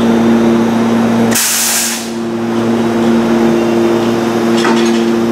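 A stationary Meitetsu μSKY electric train hums steadily on two held tones. About a second and a half in, a short burst of compressed air hisses for about half a second and drowns out the hum.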